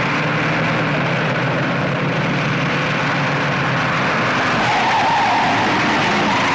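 A car driven hard at speed: a steady engine drone under loud tyre and road noise, with a brief higher whine about two-thirds of the way in.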